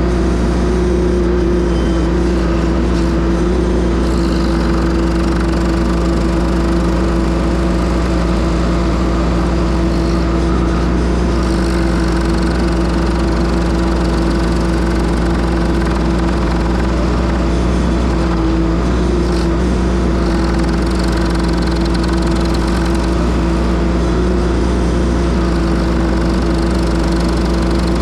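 Case TL100 mini skid steer engine running steadily under load, powering a Toro stump grinder attachment: an even drone with no breaks.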